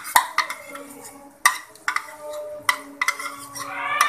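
Metal ladle knocking and scraping against a steel pot and bowl in sharp, irregular clicks as diced carrots are tipped into onions frying in oil, with a light sizzle underneath.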